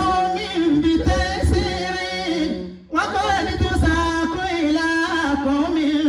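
A man singing solo and unaccompanied into a microphone, an Islamic devotional song with long held, wavering notes. He breaks off briefly about three seconds in, then carries on.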